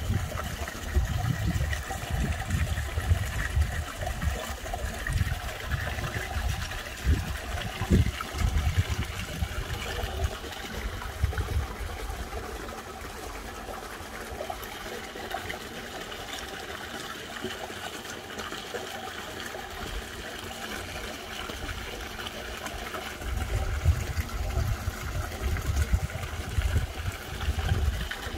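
Water trickling steadily in a koi pond, with a low rumble that comes and goes through the first part and again near the end.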